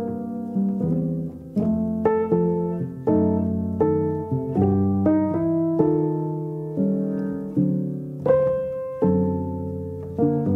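Background piano music: notes and chords struck about twice a second and left to ring out.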